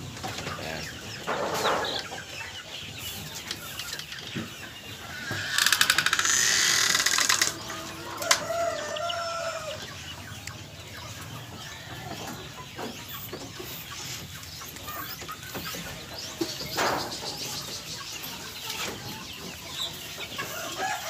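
Hens and roosters in a barn pen clucking and calling. One loud, harsh call about two seconds long, roughly six seconds in, is the loudest sound.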